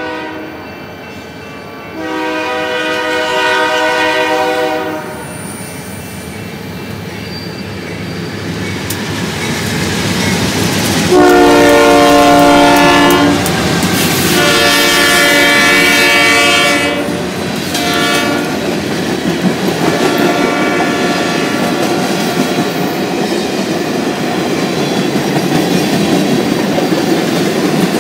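Multi-chime locomotive horn blowing several long blasts and one short one as a train approaches: long, long, short, long near the end, the grade-crossing signal. The rumble of the train builds and it passes close, wheels clattering over the rail joints.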